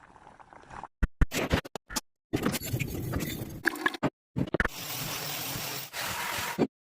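Workshop tool noise on the rusty axe head: a rough, hissing scrape in short clips that start and stop abruptly, with a few sharp knocks about a second in.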